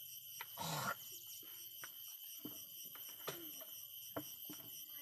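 A wooden stick scraping and knocking in loose soil as a small hole is dug by hand: a louder scrape about half a second in, then a string of short knocks. A steady high-pitched whine runs underneath.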